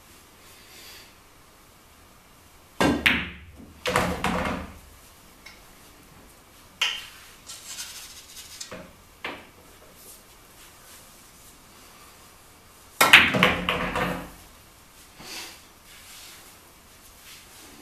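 Pool shots: a cue tip striking the cue ball, pool balls clacking together and against the cushions, and a ball dropping into a pocket with a short rolling rumble. There are two loud clusters of knocks, about three seconds in and near thirteen seconds, with lighter clicks in between.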